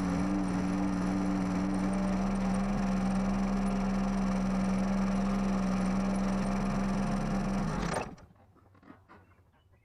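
Cub Cadet lawn tractor engine running at a steady even pitch, then shut off abruptly about eight seconds in.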